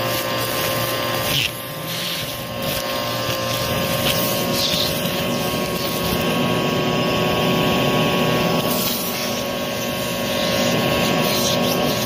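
Vacuum cleaner running with an extra-long crevice tool, its motor giving a steady whine, as it sucks up carpet debris with occasional crunches and clicks of grit and small beads going up the tool. The level dips briefly about a second and a half in.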